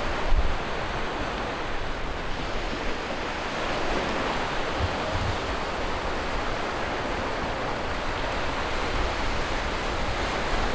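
Small waves breaking and washing up a sandy beach, a steady rush of surf. There is a brief low thump just after the start.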